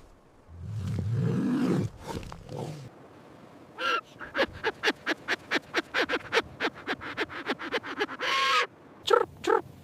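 Farm animal calls: a low drawn-out call in the first two seconds, then a rapid run of short calls, about five a second, and a few more short calls near the end.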